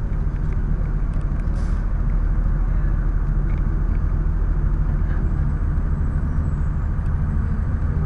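The Cummins ISC inline-six diesel of a 2002 Blue Bird CS transit bus running steadily as the bus drives, heard from inside the cabin as a low drone.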